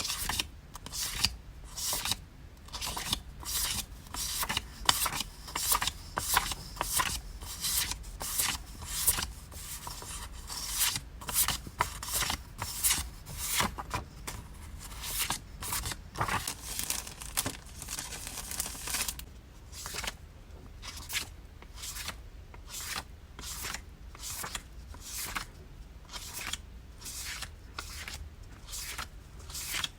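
Hand-packing sounds of paper and plastic goods: a steady run of short scraping, rustling strokes, about two a second, a little quieter and more evenly spaced for the last ten seconds or so.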